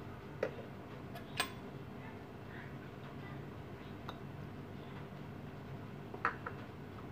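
A metal fork clinking a few times against a ceramic bowl while cubes of raw salmon are stirred, over a steady low hum.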